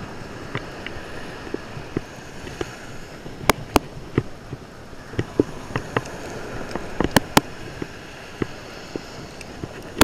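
Fishing pliers working a metal jig's hook out of a flounder: a scattered series of short, sharp metallic clicks and taps over the steady hiss of surf and wind.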